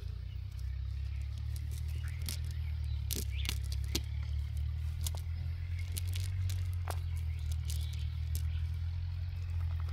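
A steady low rumble with scattered light rustles and clicks of a nylon fishing net being handled and picked through by hand.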